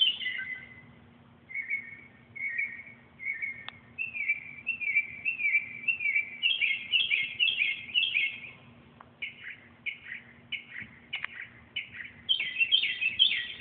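A bird chirping excitedly in long runs of short, quick repeated notes, some falling in pitch, with brief pauses about a second in and again around the middle.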